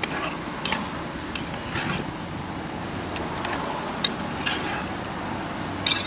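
Portable gas cartridge stove burning with a steady hiss on a nearly empty cartridge, with a few light clicks and knocks.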